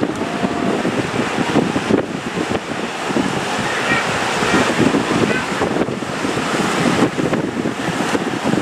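Heavy ocean surf breaking and washing, with wind buffeting the microphone. Faint distant voices come through around the middle.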